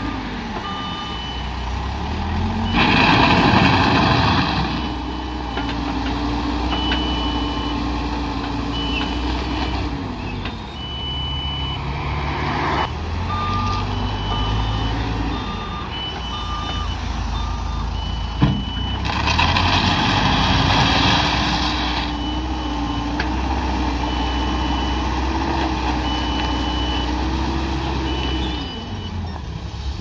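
Caterpillar backhoe loader's diesel engine revving up and settling back as it works a gravel pile, its back-up alarm beeping about once a second while it reverses. Two louder spells of rushing noise come about three seconds in and again around twenty seconds, with a single sharp knock just before the second.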